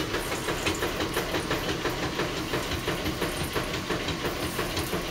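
A fork quickly and repeatedly stabbing potatoes in the oven, a steady stream of quick clicks and taps. The potatoes are being pierced so they don't burst while baking.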